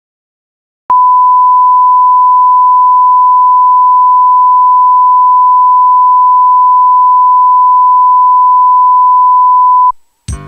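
Electronic test tone: one loud, pure, unwavering beep that starts about a second in, holds for about nine seconds and cuts off abruptly.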